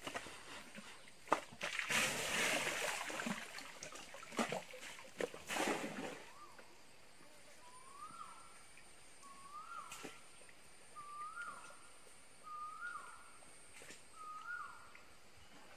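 An Asian elephant sloshing and splashing mud and water with its trunk at the river's edge, in several bursts over the first six seconds. Then a bird calls about six times, roughly every one and a half seconds, each call a short note sliding up and then down.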